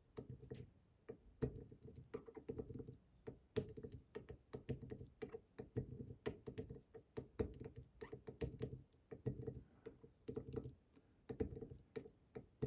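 Irregular light clicks and taps of a lock pick pushing at the pins of an IZIS Bramah-style pump lock under tension, poking the tapered pins down again and again.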